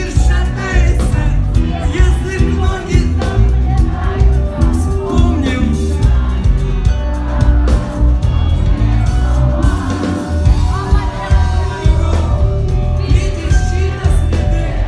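Loud pop-rock music with a heavy steady beat and singing, with some shouts and whoops from a crowd.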